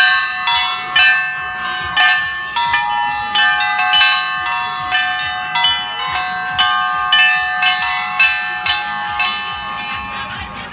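Small and medium bells of a mobile belfry being rung in a quick, uneven peal, about two strikes a second. Each stroke leaves overlapping ringing tones, and no deep bass bell is heard.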